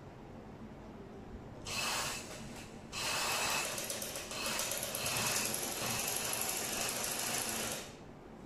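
Electric sewing machine (a domestic machine driven by an add-on motor) stitching fabric. It runs in a short burst of about a second, about two seconds in, then runs steadily for about five seconds and stops sharply.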